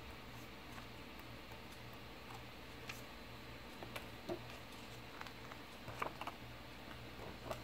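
Paper leaflets being handled and lifted out of an open colour-pencil tin: a few faint rustles and light taps, the sharpest about six seconds in.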